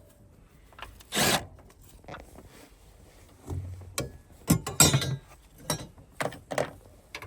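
Hand tools working on a car engine: a scattered series of sharp metallic clicks and knocks, with a few short ratchet-like scraping runs.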